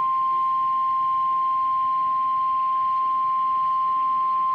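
NOAA Weather Radio warning alarm tone: a single loud, steady beep-like tone held without a break. It is the alert that comes before a new warning broadcast, here a severe thunderstorm warning.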